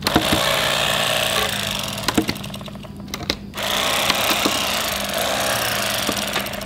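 Electric fillet knife running as it cuts the rib bones out of crappie fillets. The motor buzzes for about three and a half seconds, stops briefly, then runs again for about three seconds.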